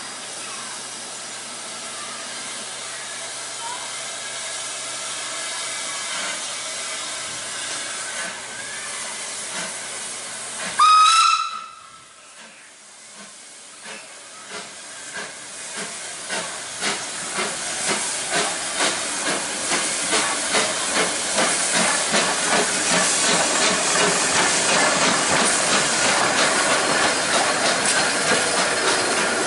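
Isle of Man Railway Beyer Peacock steam tank locomotive standing with steam hissing, then one short blast on the whistle about eleven seconds in. It then pulls away, its exhaust beats starting slowly and quickening and growing louder as the train gathers speed.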